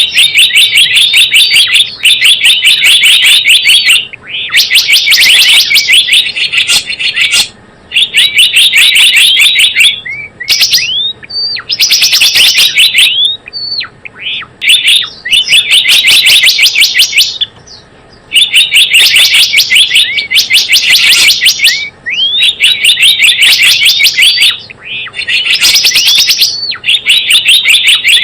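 Gelatik bloong bird-lure (pikat) recording: loud, rapid trains of high chirps, each burst lasting one to two seconds, repeated over and over with short gaps.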